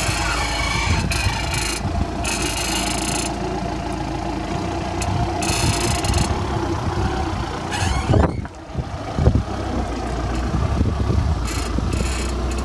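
Audi A4 B8 idling while the steering wheel is turned, with a creaking noise in separate spells of about a second each, several in the first half and again near the end. A knock comes about eight seconds in.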